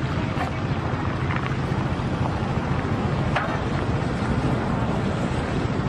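Excavator engine running steadily as a low, even hum, with wind noise on the microphone.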